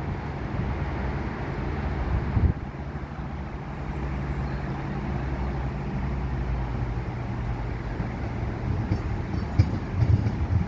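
Class 171 Turbostar diesel multiple unit's engines running with a steady low hum and rumble, slightly quieter from about two and a half seconds in, with a few light knocks near the end.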